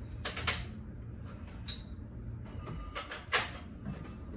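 Glass bottles clinking and knocking against each other and the shelves of a glass-fronted liquor cabinet as they are moved about: several separate sharp knocks, one with a brief glassy ring, the loudest about three seconds in.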